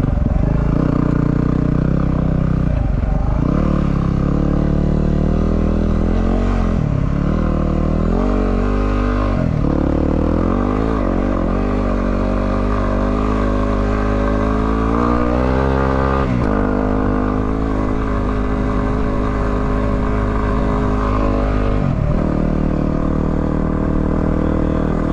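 A 250cc single-cylinder dual-sport motorcycle engine under way, its pitch rising and falling with throttle and gear changes. There are several brief dips, and one long climb in revs drops off suddenly about two-thirds of the way through.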